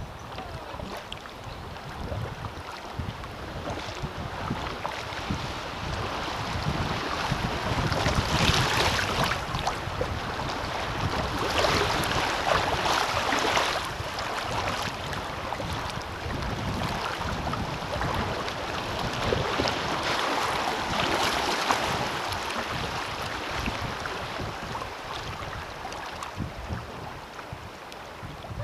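River water rushing and splashing around a kayak's hull as it runs through choppy, riffled current, swelling louder through the middle with a few stronger surges. Wind rumbles on the microphone underneath.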